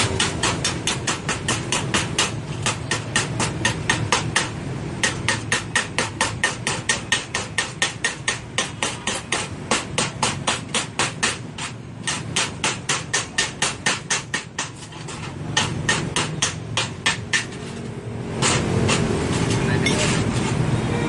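Hammer striking metal in a rapid, even rhythm of about four blows a second, with two short pauses; near the end the blows stop and a steady noise takes over.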